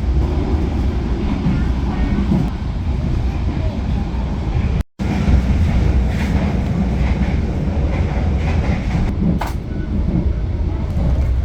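A passenger train running with a steady low rumble. The sound cuts out completely for a moment about five seconds in, and there is a single sharp click near the end.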